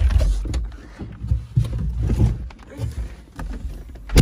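Microphone handling noise: irregular low rumbles and a few knocks as a phone is moved around.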